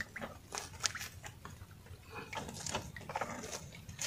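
Fishing net being hauled by hand into a small boat, with faint, irregular rustles and taps as it is pulled in and the fish are picked from the mesh.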